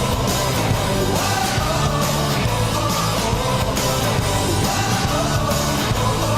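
Rock goal song with singing over a steady band, played for a Columbus Blue Jackets goal.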